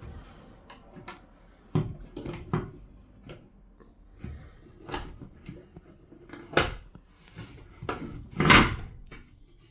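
Irregular handling clicks and knocks from bathroom-fan parts being handled and fitted, the two loudest about six and a half and eight and a half seconds in.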